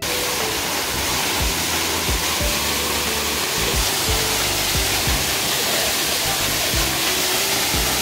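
Waterfall about 30 m high pouring onto rock and into a shallow plunge pool: a steady, even rush of falling water, throwing up heavy spray. Soft background music plays underneath.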